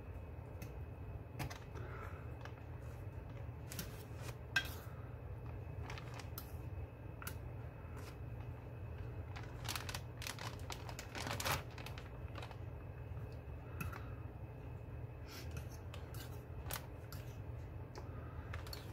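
Plastic fork clicking and scraping against a dish as perch fillets are turned in beaten egg: scattered light clicks, with a sharper one about four seconds in and a run of them around ten to eleven seconds, over a steady low hum.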